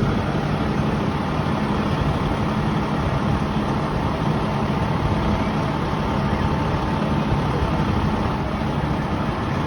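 Fire engine's diesel engine running steadily at idle, with a constant low hum and no siren.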